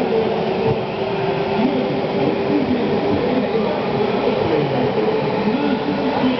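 Steady rumbling din of a large arena crowd, with a reverberant voice over the public-address system rising and falling over it.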